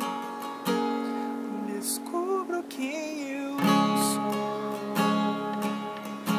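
Steel-string acoustic guitar playing a slow strummed chord progression, each chord left to ring, with a fuller strum about three and a half seconds in.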